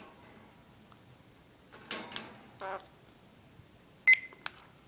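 Pet parrot imitating a microwave: two short squawks about two seconds in, then a short electronic-style beep about four seconds in, followed by a few sharp clicks.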